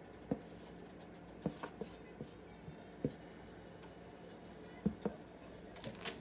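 A spatula scraping and tapping against a bowl as shredded chicken is scraped into a glass mixing bowl: soft, scattered clicks and knocks, about nine over a few seconds.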